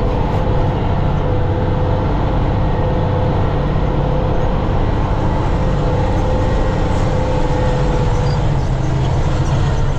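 Silage truck's engine running steadily, heard from inside the cab as a low drone with a faint steady tone above it.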